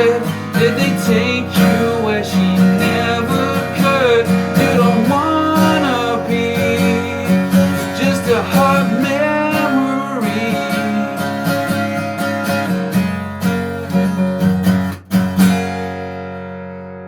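Guitar instrumental outro: strummed acoustic guitar with melodic lead lines. About 15 s in it ends on a final strummed chord that rings out and fades away.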